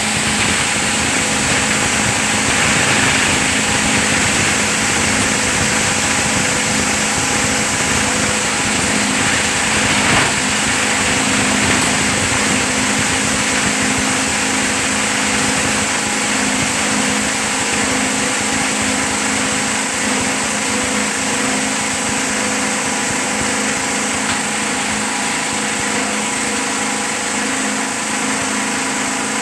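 PET bottle grinder machine running steadily: a constant hum with an even whirring noise over it, unchanging throughout.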